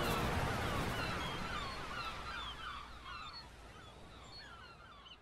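Gulls calling over the wash of breaking surf: many short, gliding calls over a steady rush of waves, the whole fading steadily quieter.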